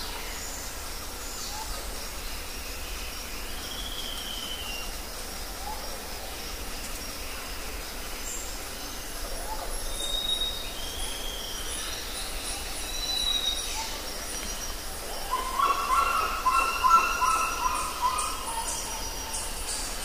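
Rainforest ambience: scattered whistled, gliding bird calls over a steady background hiss. About three-quarters of the way through, a run of rapid, repeated lower calls becomes the loudest sound, followed by quick high chips.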